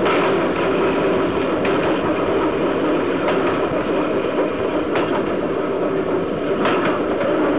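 Steel wheels of a loaded freight train rolling on the rails, heard close up at the bogie: a steady rolling rumble, broken by a sharp clack about every second and a half.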